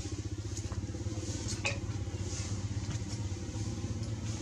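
A small engine running steadily with a fast, even pulse, and a short sharp click about one and a half seconds in.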